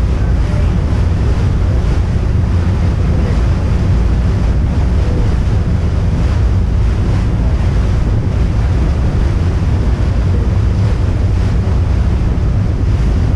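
Wind buffeting the microphone on the open deck of a moving ferry, mixed with the rush of water along the hull. Loud and steady, heaviest in the low end.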